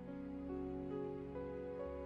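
Quiet background music: soft held notes forming slow chords, with the notes shifting a few times.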